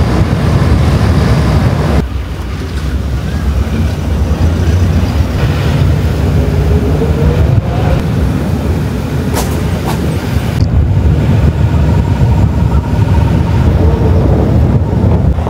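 Wind buffeting the microphone outdoors: a loud, unsteady low rumble, with the sound changing abruptly about two seconds in and again around ten seconds.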